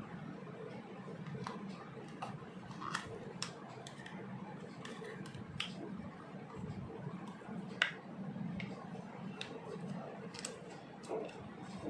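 Scattered light clicks and taps of small plastic toy pieces being handled, about one every second or so, the sharpest about eight seconds in, over a low steady background hum.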